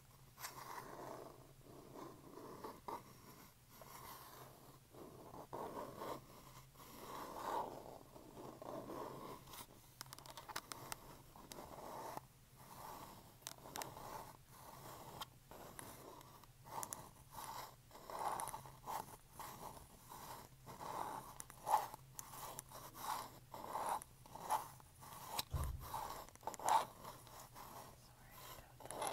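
Long acrylic fingernails tapping and scratching on a small black hard object: scratchy scraping in the first half, then quick runs of sharp taps in the second half.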